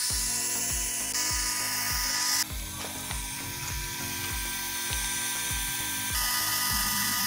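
Small 12-volt DC water pump motor whining steadily as it drives a jet of water, with a high hiss that drops away about two and a half seconds in and comes back near the end. Background music with a steady beat plays underneath.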